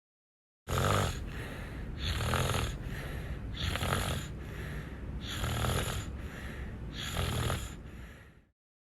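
Loud snoring: five snores in a row, about a second and a half apart, over a steady low rumble. It starts suddenly just under a second in and fades out near the end.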